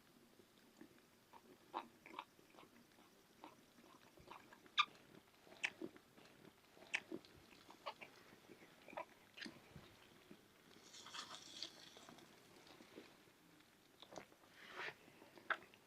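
A person quietly chewing and biting into roasted chicken, with scattered crisp clicks and crunches at irregular intervals and two slightly longer rustling crunches near the middle and near the end.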